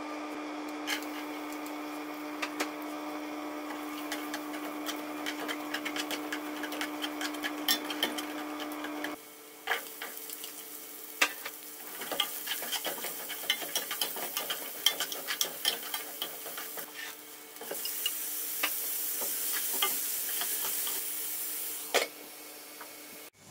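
Food sautéing in a pan, the sizzle broken by the clicks and scrapes of a utensil stirring against the pan. A steady low hum runs under it for the first nine seconds or so, and the sizzle grows louder for a few seconds toward the end.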